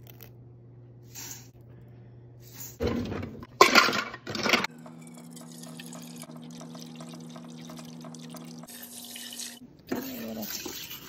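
Water pouring steadily into a plastic measuring cup at a kitchen sink for about five seconds, after a few loud clattering knocks. Near the end a spoon stirs in the cooker's metal pot.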